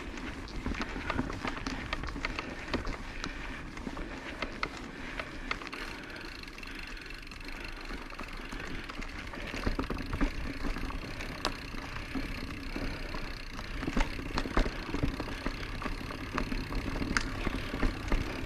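Orbea Occam mountain bike ridden along a dirt trail: a steady rush of tyres and motion, peppered with frequent sharp clicks and rattles.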